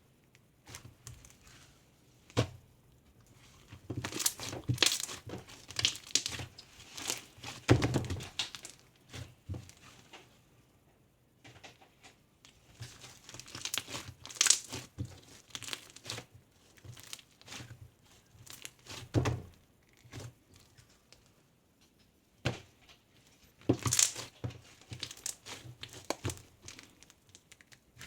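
Intermittent crinkling and rustling handling noises with light knocks, coming in clusters separated by quieter pauses.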